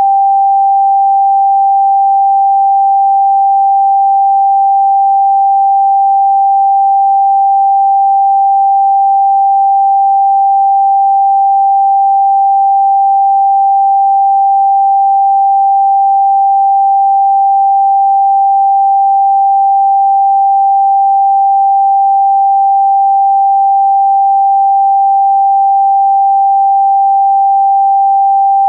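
A single electronically generated sine tone, played as a Rife 'healing frequency', held at one steady mid pitch without any change in pitch or loudness.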